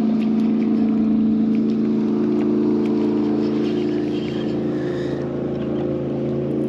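Boat motor running with a steady, even drone.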